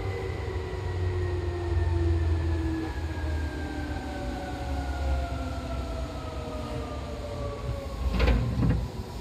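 Seibu 2000 series electric train running, its traction motor and gear whine gliding slowly down in pitch over a low rumble as the train slows. Two sharp knocks come near the end.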